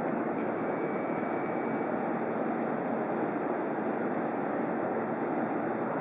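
Steady rushing noise of electric trains standing at the platform with their onboard equipment running, with a faint high tone about half a second in.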